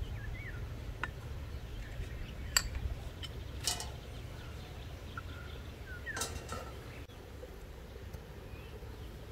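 Tableware clinking: tea glasses, plates and a fork knocking on dishes, a handful of light clinks spaced a second or so apart, one ringing a little longer. Birds chirp now and then over a steady low background rumble.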